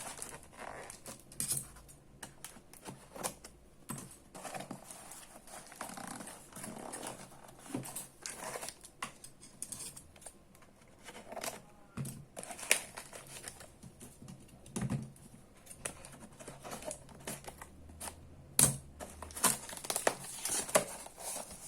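Packaging being handled and opened: irregular crinkling and tearing with scattered sharp clicks and a few louder knocks.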